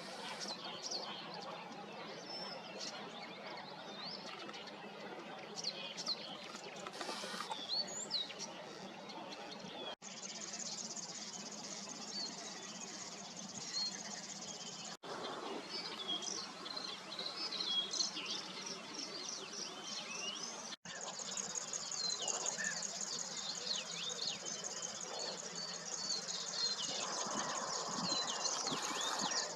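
Many small birds chirping and calling over a steady outdoor background hiss. Three times the sound drops out for an instant at a cut.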